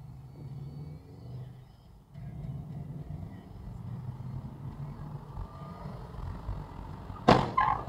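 Car engine and road noise heard from inside the cabin as the car pulls away from a stop and picks up speed. Near the end comes a loud sharp knock, followed quickly by a smaller one.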